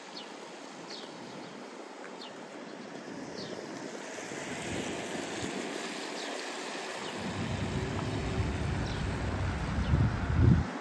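Outdoor ambience: a steady rushing noise with a few faint short chirps in the first half, and a low rumble that builds over the last few seconds and is loudest just before the end.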